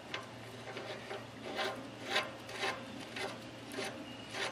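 Castle nut being spun by hand onto the greasy threaded spindle of a Dexter 3500 lb trailer axle hub, metal threads scraping in short strokes about twice a second.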